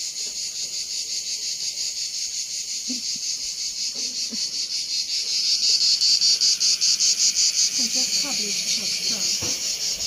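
Singing insects, a loud, high buzz pulsing rapidly and evenly throughout, growing a little louder about halfway.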